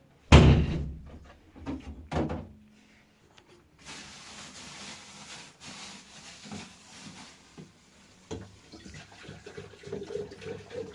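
A heavy thud with a low, ringing decay, a second thud about two seconds later, then a few seconds of steady hiss.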